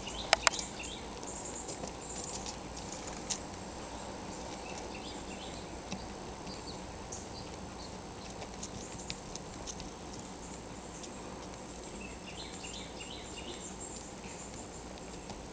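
Gray squirrel digging and scratching in potting soil and dry fallen leaves in a plant pot: light rustling with scattered small ticks. Two sharp clicks about half a second in.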